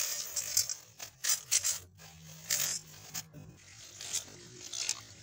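Dry macaroni pasta rattling into a steel pot as it is tipped from a crinkling plastic bag, in a run of short bursts, loudest at the start. Later, water is poured into the pot over the pasta.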